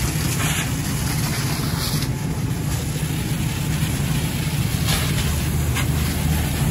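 Steady low rumble of a fire engine running to pump water, under the rushing hiss of a hose stream spraying onto burning debris. A few sharp crackles from the fire come through about five seconds in.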